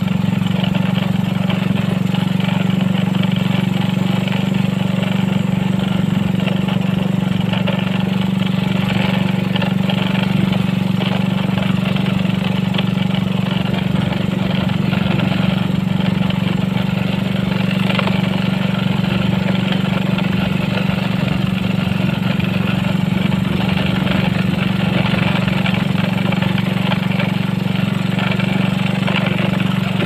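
Motorcycle engine running at a steady speed while riding, an even drone with no change in pitch.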